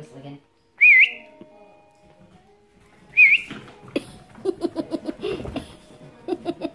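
A person whistling two short, loud notes with a wavering pitch, about two seconds apart, the sort of whistle used to call puppies. From about four seconds in there is a run of short squeaks and light clicks as border collie puppies run across the wooden floorboards.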